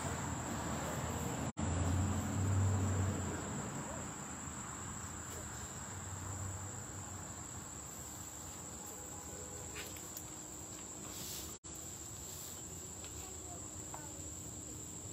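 Insects chirring steadily at a high pitch, with a low murmur of voices that is louder in the first few seconds and then eases off. The sound drops out for an instant twice.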